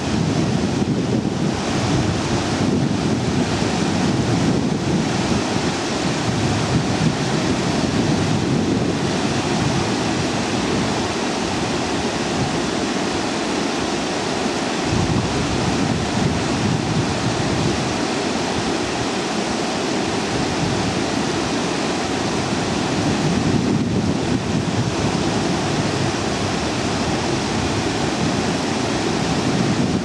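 Steady rushing of water in the open settling tanks of a water treatment plant, with wind buffeting the microphone in an uneven low rumble.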